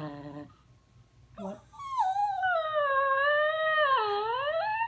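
Small dog howling, its "talking back" vocalising: a short falling note at the start, then one long wavering howl of about three seconds whose pitch sags and rises again near the end.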